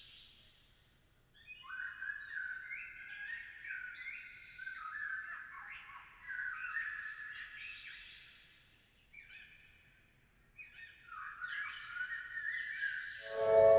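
Birds singing: quick chirps that slide down in pitch, overlapping, in two runs with a pause of a couple of seconds between them.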